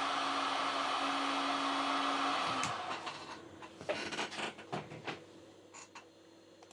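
Hot air rework gun blowing steadily with a humming fan, switched off a little over two seconds in, followed by a few sharp clicks and knocks of tools and cables being handled.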